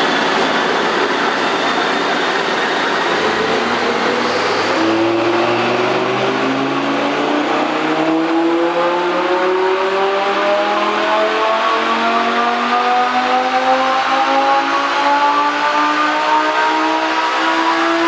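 Lamborghini Gallardo LP560-4's V10 on its stock exhaust, making a full-throttle pull on an all-wheel-drive chassis dyno. The engine note climbs steadily and evenly through the revs for about fifteen seconds.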